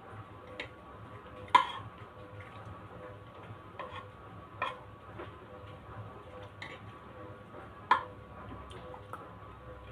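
Metal spoon clinking and scraping against a bowl and plate during a meal: irregular sharp clinks every second or two, the loudest about a second and a half in and again near eight seconds, over a faint steady hum.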